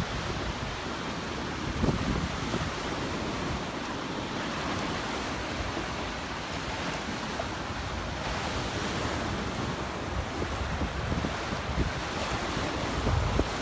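Surf washing onto the beach in a steady rush, with wind buffeting the microphone in low gusts, strongest about two seconds in and near the end.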